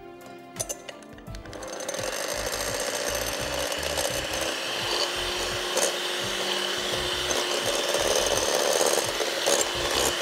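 Electric mixer switching on about two seconds in and running steadily, beating egg yolks and sugar.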